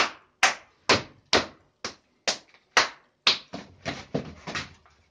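Two people slapping their hands together in a handshake routine: sharp claps and high-fives about two a second, then a quicker run of lighter slaps near the end.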